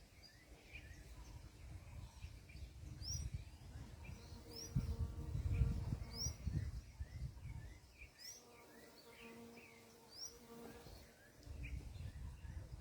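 Small birds calling: a sharp, high rising chirp repeated about every two seconds, with softer chirps in between, over a low rumble on the microphone.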